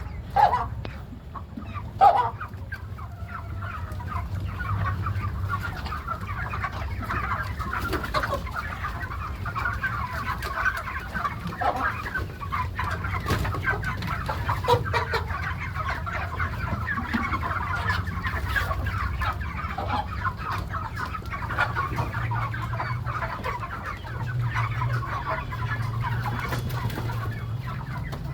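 A large flock of chickens clucking continuously, with two louder calls near the start, over a steady low hum.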